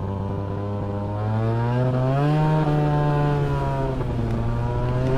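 Peugeot Jetforce scooter's 50 cc two-stroke engine, with an open air filter, pulling away under throttle. Its note rises over the first two seconds or so, then holds steady.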